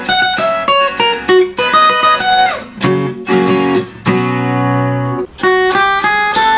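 Acoustic guitar played fingerstyle: a relaxed melody of single plucked notes, with a chord left ringing for about a second just past the middle before the picking resumes.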